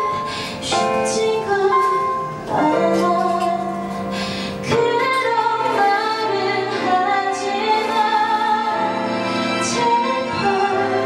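A woman singing live into a handheld microphone over instrumental accompaniment, holding long notes. The music gets louder about five seconds in.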